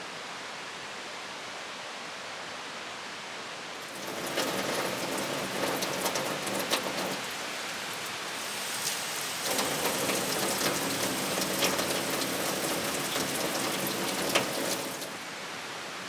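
Water running from a tap and splashing onto dishes in a sink, in two spells with a short pause between, with small clinks of the dishes being handled, over a steady background rush.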